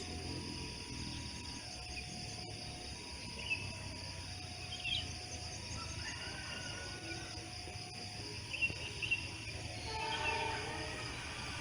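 Faint railway level-crossing warning signal alternating between a higher and a lower tone about once a second, over a steady buzz of insects, with a low rumble and a few short bird chirps.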